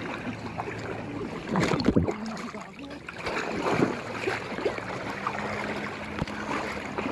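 Shallow seawater sloshing and splashing around wading legs, louder twice, about one and a half and three and a half seconds in. Under it runs a boat engine's steady low hum.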